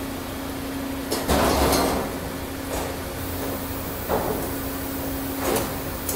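Nordic Emballasje frozen-fish packaging machine running with a steady hum and metallic clattering knocks as frozen fish blocks are pushed through. The loudest clatter comes about a second in and lasts nearly a second, with shorter knocks around four and five and a half seconds in.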